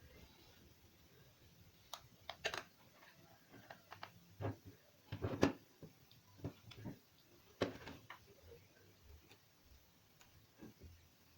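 Irregular light clicks and taps of small parts being handled and set down, the loudest knock a little past five seconds in and another near eight seconds.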